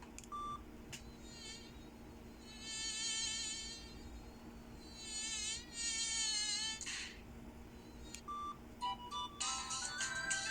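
Samsung E530 mobile phone playing a buzzy alert tone that wavers slightly in pitch, twice for about one and a half seconds each. Each is preceded by a short beep, and near the end a stepping ringtone melody starts.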